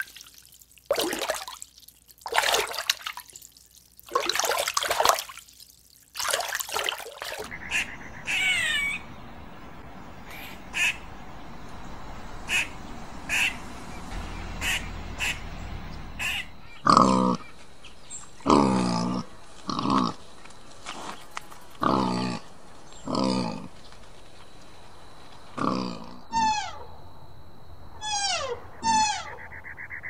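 Short splashy bursts from koi carp in the first several seconds, then a kiwi calling: a series of loud, hoarse, low calls, followed near the end by repeated short falling whistles.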